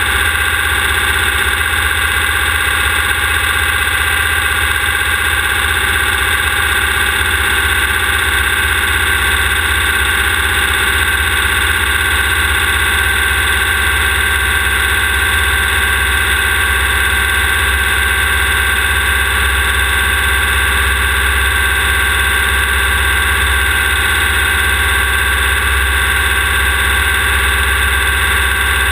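Class 1600 off-road race buggy's air-cooled VW engine running hard at a steady pitch, heard close up from an onboard camera at the rear.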